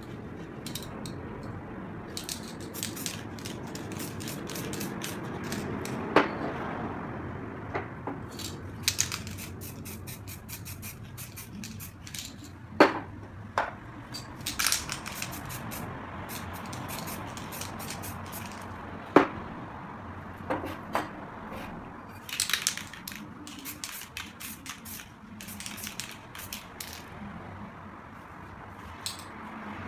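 Aerosol spray-paint can hissing in many short puffs as paint is sprayed over a paper stencil, with a few sharp knocks in between.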